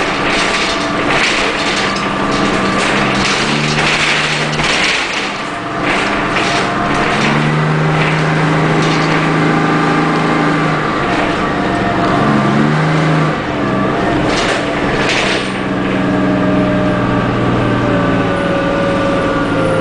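Interior of a 1985 Flyer D901A city bus under way: its Detroit Diesel 6V71N two-stroke V6 diesel runs steadily, its note stepping up and down in pitch several times, with scattered rattles and knocks from the body and fittings. Near the end a whine falls slowly in pitch.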